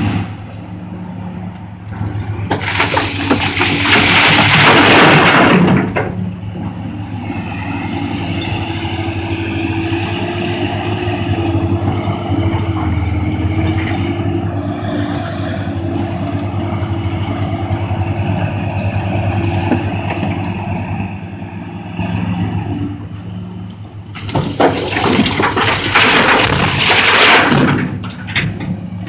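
Cat 375 L hydraulic excavator's diesel engine running steadily while two bucketloads of broken rock are dumped into a steel haul-truck bed. Each dump is a loud crashing rush of about three seconds, the first a few seconds in and the second near the end.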